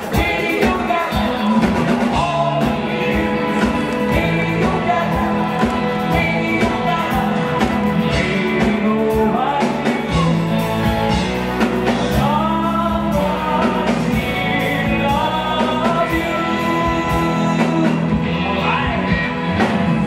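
A live rock band plays throughout: drum kit, electric guitar, bass guitar and keyboards behind a male lead singer.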